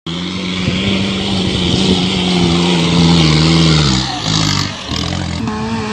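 Modified 4x4 jeep engine working hard as it climbs a sand dune, revs held high and then dropping about four seconds in. Wheels spin and throw sand, adding a hiss that swells briefly as the revs fall.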